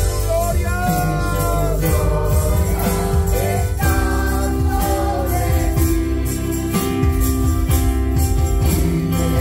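Live worship song: a woman singing a melody over sustained electric keyboard chords, with a steady percussion beat underneath.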